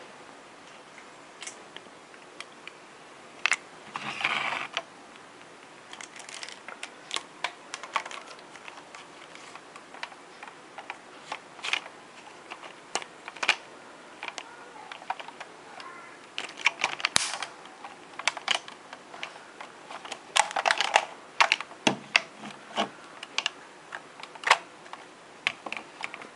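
Hard plastic clicks, taps and scrapes from a Kamen Rider Blade toy transformation belt being handled, its red plastic strap taken off and clipped back onto the buckle. Scattered sharp clicks with a few longer scraping rattles, over a faint steady hiss.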